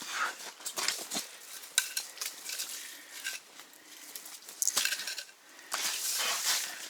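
Irregular clinks, clicks and scraping from fishing gear being handled, with a longer rustle near the end.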